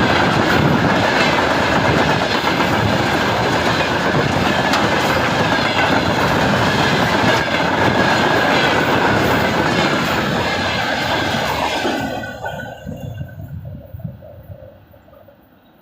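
Freight train rolling past close by, the wheels clattering over the rail joints. About twelve seconds in the sound drops off sharply and then fades away as the end of the train goes by.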